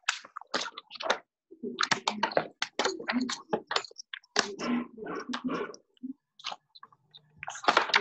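Irregular clicks and taps in uneven clusters with short pauses, like typing on a computer keyboard and clicking a mouse.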